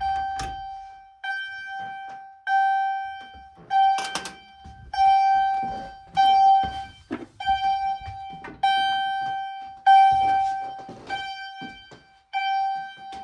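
Wheelock CH70 electronic fire alarm chime sounding a repeated strike about every 1.2 seconds, each a bright bell-like tone that rings and fades, like a real chime though made by a tone generator. A few sharp knocks sound over it, at the start and about four seconds in.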